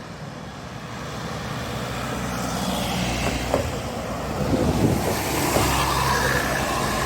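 Bus engine and tyre noise growing louder as it approaches and passes by, loudest about five seconds in, over general road traffic.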